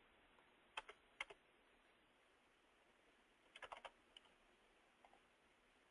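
Faint clicking of a computer keyboard and mouse over near silence: a few single clicks about a second in, then a quick run of four or five clicks near the middle.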